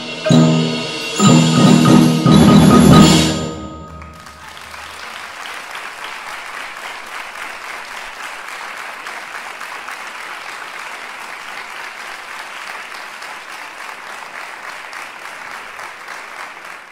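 A percussion ensemble of marimbas, xylophones and drums plays the closing chords of a piece, two short loud strikes and then a final chord held for about two seconds. From about four seconds in, the audience applauds steadily to the end.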